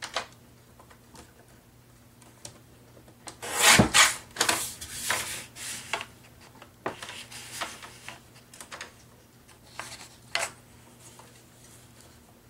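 Sheets of paper sliding and rubbing against one another as they are handled, in several irregular bursts of rustling, the loudest about four seconds in.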